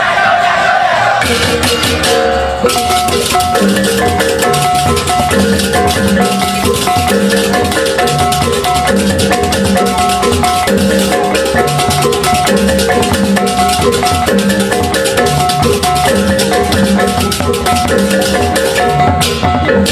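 Balinese gamelan percussion music of the kind played for ogoh-ogoh processions: tuned metal gongs repeating a short, steady pattern over a constant clash of cymbals. The pattern sets in about two and a half seconds in.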